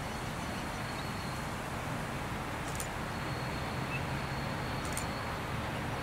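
Victorian Railways T class diesel-electric locomotive running at a distance as it approaches, a low steady engine hum under a haze of outdoor noise. A thin steady high insect buzz runs through it, with two short high chirps about three and five seconds in.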